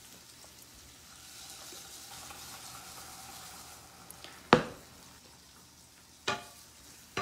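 Garlic and bell peppers sizzling faintly in oil in a frying pan, with three sharp ringing knocks of a utensil against the pan during stirring. The loudest knock comes about halfway through, and the others come a couple of seconds later and near the end.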